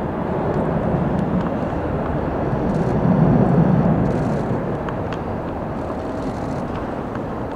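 Boeing 767 jet engines at taxi power: a steady rumble and hiss that swells for about a second a few seconds in, then eases off.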